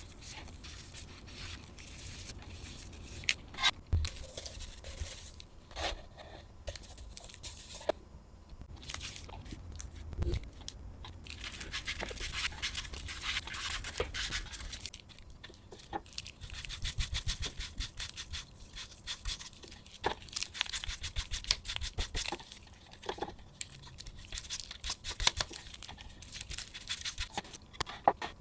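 Hand polishing and rubbing on the sticky, hydrolyzed rubber-coated body of a Bodum coffee grinder: quick back-and-forth scrubbing strokes that grow busier about halfway through, with a few knocks as the grinder is handled.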